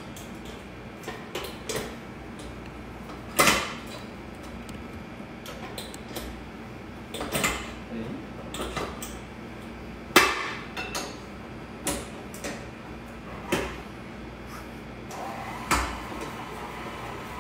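Irregular metallic clanks and knocks of a stainless steel mixing bowl being set into place and handled on a stand mixer, a sharp knock every few seconds.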